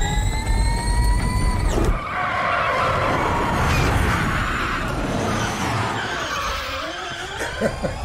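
Electric motors of the Audi S1 Hoonitron whining and slowly rising in pitch for about two seconds. Then the tyres screech as the car spins donuts, a rough squeal that takes on a wavering tone near the end.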